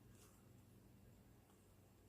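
Near silence: room tone with a faint steady low hum and one faint soft click just after the start.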